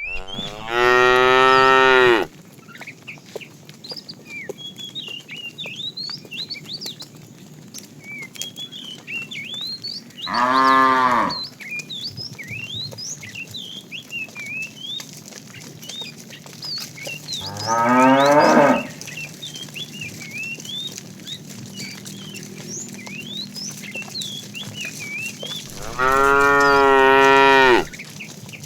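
Cows mooing: four long, loud moos spaced roughly eight seconds apart, the third rising in pitch. Short high chirps go on between the moos.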